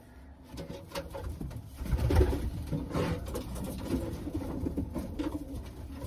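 Racing pigeons cooing softly in their loft, with a few low bumps of handling in between.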